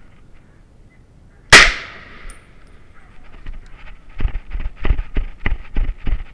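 A single hunting-rifle shot at a driven wild boar about one and a half seconds in, loud with a short echoing tail. From about four seconds in, quick footsteps, about three a second, as the shooter hurries along a gravelly forest track.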